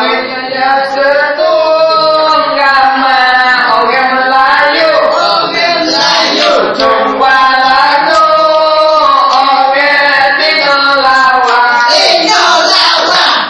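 A large group of people singing together in unison, loud and unbroken.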